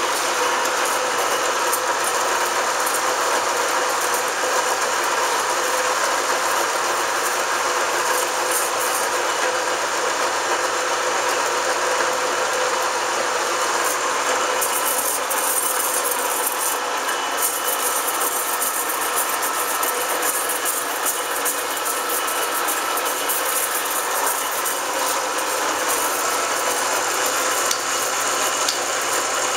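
1981 Dainichi SHB gap-bed engine lathe running steadily on its 15 hp main drive motor, with the carriage on power feed and the tool taking a turning cut on a bar.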